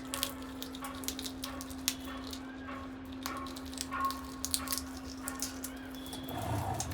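Parrots cracking and nibbling peanut shells with their beaks: a string of sharp clicks and crunches, with soft short chirps in between.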